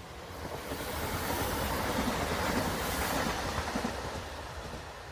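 Newag Impuls electric multiple unit passing by on the rails: a swell of wheel and rail noise that builds, is loudest around the middle and fades as the train goes past.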